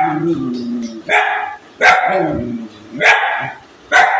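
A dog barking angrily, four loud, sharp barks about a second apart.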